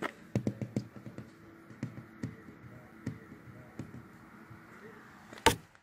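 Fingertip tapping on a vehicle's window glass, a scatter of light irregular taps with one louder sharp tap near the end.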